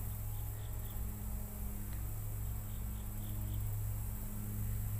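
Insects chirping in two short runs of quick, high pulses, about four a second, over a steady low hum.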